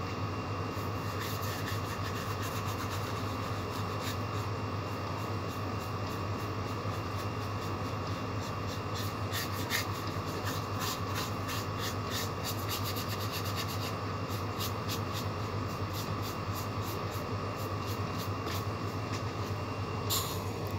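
Paintbrush bristles rubbing back and forth across paper in short, quick strokes, a scratchy swish repeating a few times a second over a steady low hum. A single bump near the end as the phone is handled.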